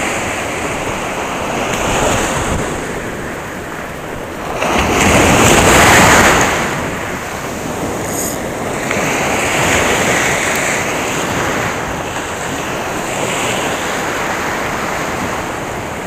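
Small surf breaking and washing up over the sand in repeated swells, the loudest wash coming about five seconds in.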